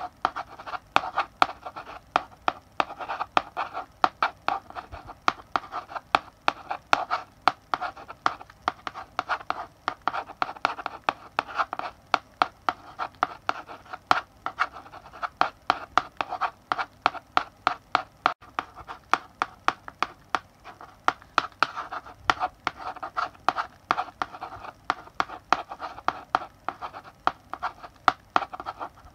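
Chalk writing on a blackboard: a steady run of quick taps and scratchy strokes, several a second, as letters are written.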